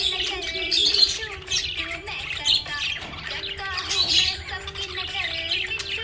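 Budgerigars chirping and chattering without a break, a busy high warble that swells about a second in and again about four seconds in.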